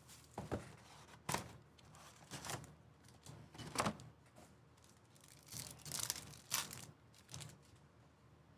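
Sports card packs being torn open and the cards handled: a series of short tearing, crinkling and snapping sounds, with a busier cluster around six seconds in.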